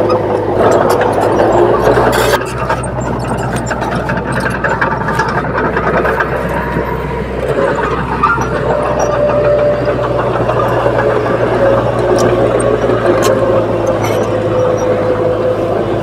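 Small crawler bulldozer's diesel engine running steadily as it pushes soil, with scattered clicks over the engine note.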